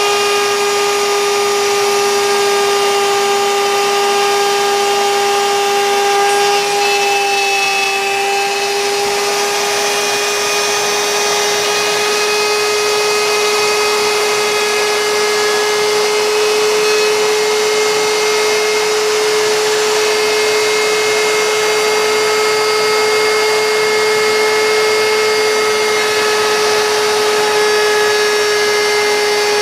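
CNC router spindle running steadily while cutting wood, a constant high whine over cutting noise that dips slightly in pitch about eight seconds in.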